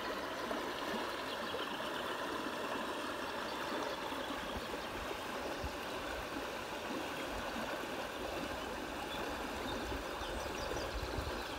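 Steady rush of river water running.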